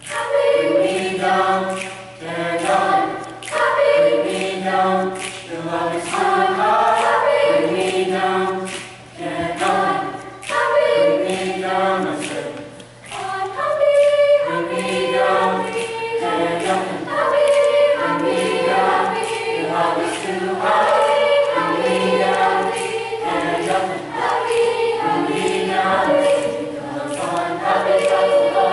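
Junior high school choir singing a song together.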